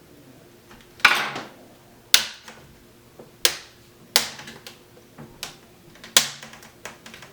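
Plastic snap clips of an Acer Aspire V5-571 screen bezel popping loose one after another as it is pried off with a small flathead screwdriver. There are about six sharp pops, the first about a second in, with lighter clicks between them. The popping is normal: it is the bezel coming apart, not breaking.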